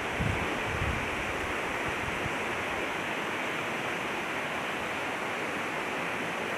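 Swollen, muddy floodwater rushing past in a steady, even rush of noise. Wind buffets the microphone briefly in the first second.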